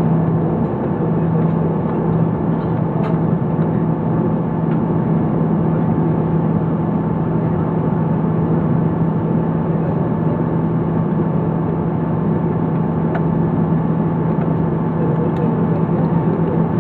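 Airbus A340-300 cabin noise: the four CFM56 engines and airflow make a steady rushing hum with a constant low tone, heard from inside the cabin.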